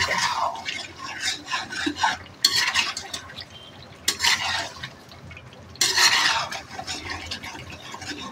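Metal spatula stirring and scraping through thick mutton curry in a black karahi (wok), mixing in freshly added yogurt, in repeated scraping strokes.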